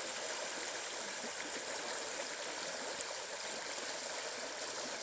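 Creek water running steadily over rocks, a continuous even rush of flowing water.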